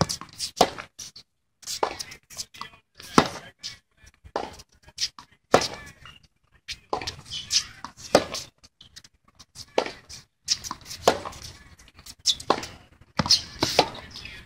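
Tennis rally on a hard court: sharp racket-on-ball strikes roughly every two to three seconds, alternating louder near hits and fainter far ones, with smaller knocks of ball bounces and footsteps on the court in between.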